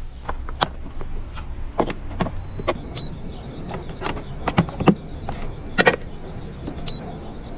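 Scattered sharp clicks and knocks over a faint low hum, with two short high beeps, one about three seconds in and one about seven seconds in.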